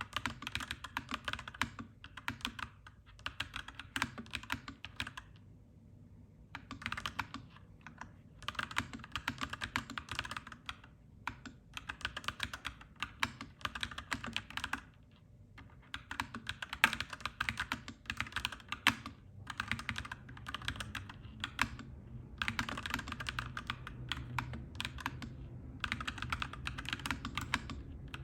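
Clacky mechanical keyboard being typed on in quick runs of keystrokes with short pauses between them, over a steady low rumble.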